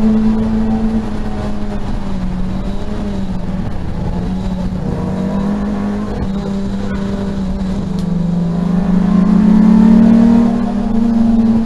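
Peugeot 205 GTi race car's four-cylinder engine heard from inside the cabin, pulling under load. The revs hold fairly steady at first, then climb and get louder about nine seconds in before dropping back near the end.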